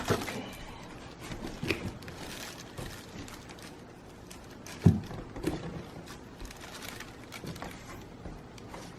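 Knocks and bumps of a boxed heater being unpacked and handled, one louder thump about five seconds in.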